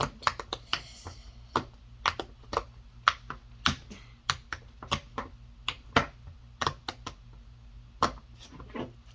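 Silicone push-pop bubble fidget toy being popped bubble by bubble on its loud side: a run of sharp pops at an uneven pace, about two or three a second.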